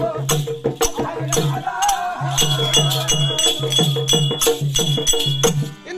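Therukoothu troupe's accompanying music: a steady beat of about two strikes a second with jingling, rattling percussion and a sustained melodic line. It stops just before the end.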